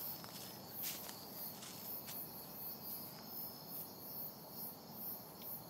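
Outdoor insect chorus of high-pitched chirping that pulses about twice a second over a steady hiss, with a few faint clicks in the first couple of seconds.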